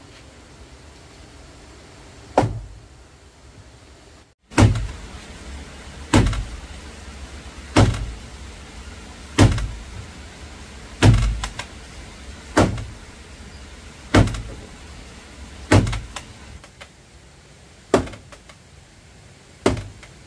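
Heavy blows on wood struck at a steady pace, about one every second and a half, each a sharp knock with a deep thud that dies away quickly.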